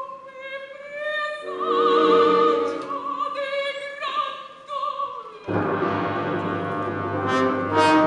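Operatic soprano singing high, sustained notes with a wide vibrato over a soft orchestral accompaniment. About five and a half seconds in, the full orchestra comes in loudly.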